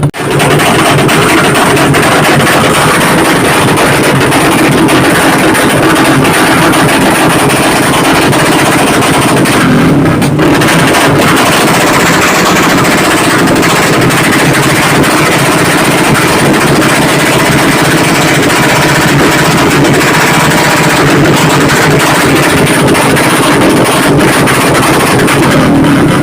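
Loud, steady running of a motor vehicle's engine.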